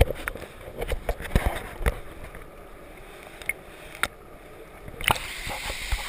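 Muffled sound heard through a camera held under the water of a waterfall pool: dull knocks and bubbling thuds. About five seconds in the camera breaks the surface, and a steady open-air rush of water comes in.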